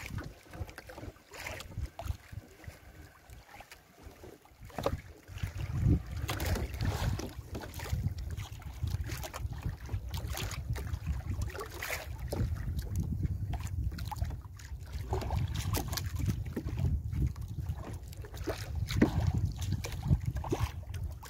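Wind rumbling low on the microphone, with scattered knocks and rustles as a fishing gill net is hauled by hand into a small outrigger boat and fish are picked out of it. The rumble and handling noise grow louder about five seconds in.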